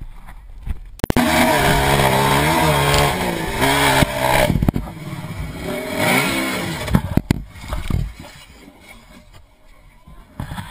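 Honda TRX450R quad's single-cylinder four-stroke engine revving hard from about a second in, easing briefly and then climbing again. A few sharp knocks follow as the quad crashes on the hill, and the engine noise stops.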